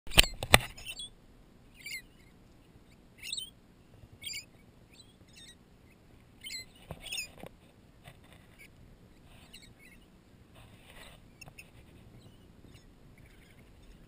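Rainbow lorikeets giving short, shrill screeches over and over as they feed from a hand, loudest in the first half and fainter later on. Two sharp knocks right at the start are the loudest sounds.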